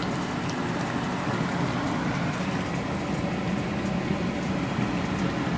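Battered croaker pieces sizzling steadily in hot frying oil, over a low steady hum.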